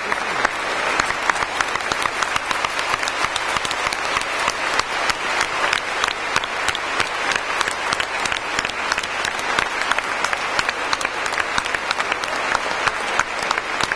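A large crowd applauding: dense, steady clapping that goes on without a break.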